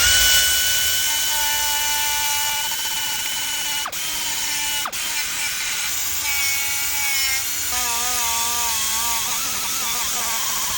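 Electric power tool running with a steady whine over a hiss, used on a car wheel rim during cosmetic repair. Its pitch dips sharply twice, about four and five seconds in, and wavers up and down near the end.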